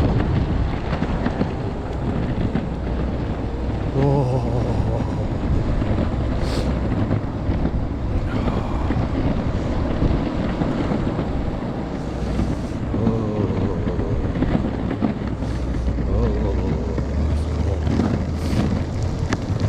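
Strong wind buffeting the microphone during an electric skateboard ride at about 15–20 mph: a steady, heavy low rumble.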